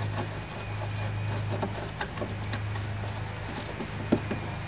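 Scattered light clicks and ticks of hand tools and plastic parts as the air intake box is worked loose, over a steady low hum.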